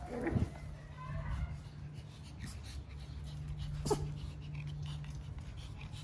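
Puppies yipping and whining as they play: a short whine near the start and a sharp yip about four seconds in, over a steady low hum.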